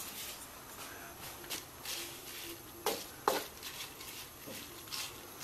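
Faint kitchen handling noise: a few light knocks and clicks, as from utensils or the pan being touched, over low steady room noise.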